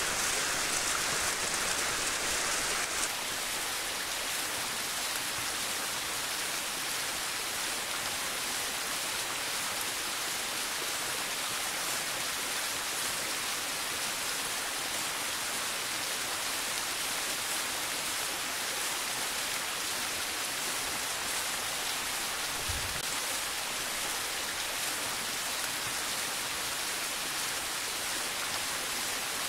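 Shallow stream water sheeting and trickling down a steep bare rock face, a steady rushing hiss, slightly louder for the first three seconds.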